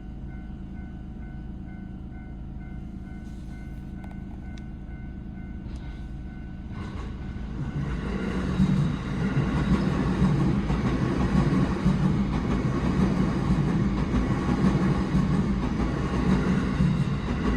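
Japanese railway level-crossing alarm ringing in a steady pulsing pattern. About seven seconds in, a train arrives and passes over the crossing, its rumble and rail noise rising and staying loud over the bell.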